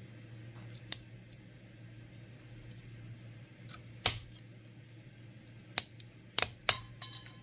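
Sharp clicks and taps of small tools working at the Surface Pro 4's display cable connectors: single clicks about a second in and about four seconds in, then a quick cluster near the end. A steady low hum runs underneath.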